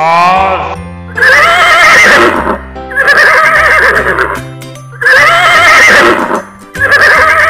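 Horse neighing: a short falling whinny at the start, then a loud neigh repeated four times about two seconds apart, over background music.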